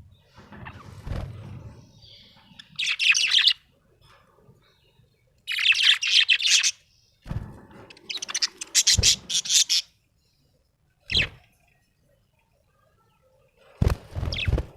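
Budgerigar chirping in about five short bursts of rapid, high-pitched chatter, some of them with low thumps.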